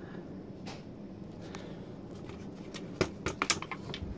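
A quick run of light clicks and rustles about three seconds in, over a faint steady hum.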